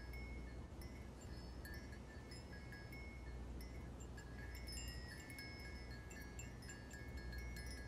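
Faint, scattered high chiming tones at several pitches, like wind chimes, over a low steady hum.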